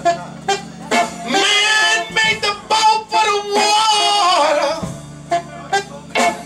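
Live soul band playing: a man singing into a microphone and a saxophone over the band, with sharp drum hits and a long held note in the middle.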